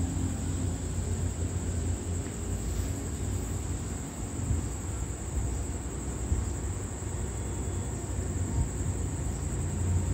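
Steady, high-pitched insect chirring over a steady low rumble.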